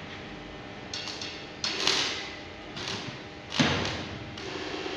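Stick-welding electrode being struck against a steel tube to start the arc: several short crackling bursts about a second apart as the arc catches and breaks, the loudest near the end, then a steadier arc crackle takes over.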